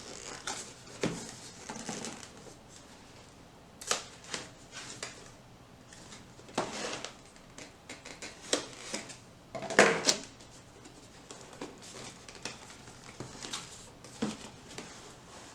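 Cardboard product box being opened and handled: scattered clicks, knocks and rustling of cardboard and packaging, the loudest bursts around 4, 7 and 10 seconds in.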